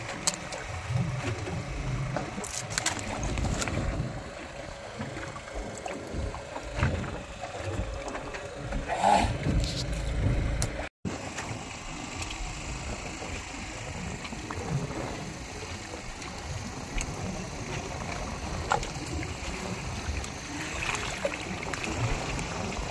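Low, uneven rumble and water noise aboard a small fishing boat at sea, with a few short knocks; the sound cuts out for an instant about eleven seconds in.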